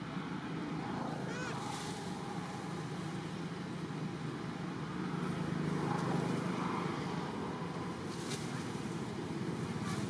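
Steady low background rumble, with a few faint higher wavering sounds over it.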